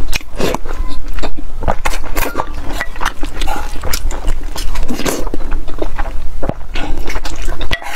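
Close-miked eating: a rapid run of wet chewing, smacking and slurping as spoonfuls of rice and soft strips in broth go into the mouth, with occasional clicks of a wooden spoon.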